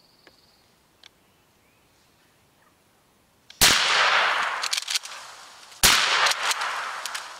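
Two shotgun blasts, the first about three and a half seconds in and the second about two seconds later, each followed by a long echoing decay.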